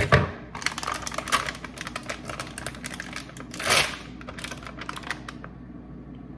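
Rapid light clicking and tapping of kitchen items being handled, with a short rushing sound about three and a half seconds in; the clicking stops about a second before the end.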